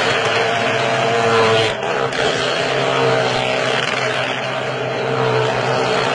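Motorcycle engines running steadily at speed as the bikes circle the wall of a wall-of-death drum, with a brief dip in level just under two seconds in.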